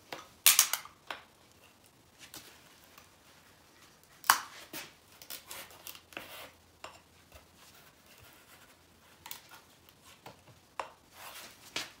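Pliers scraping and clicking against an ATV wheel rim as the cut tire bead is pulled away from it: a series of short, sharp scrapes and clicks at irregular intervals, the loudest about half a second in and about four seconds in.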